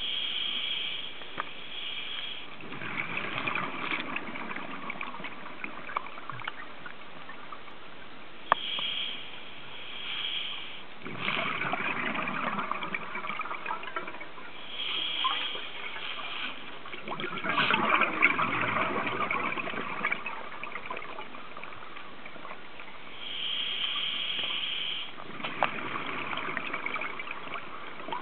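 Scuba diver breathing through a regulator underwater, four breaths about every seven to eight seconds. Each is a short hiss of inhaling followed by a longer burst of exhaled bubbles.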